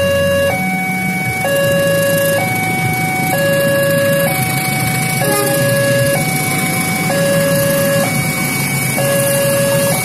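Railway level-crossing warning alarm sounding from its loudspeaker, a two-tone 'ding-dong' that alternates between a lower and a higher tone, each held about a second, over a low engine rumble.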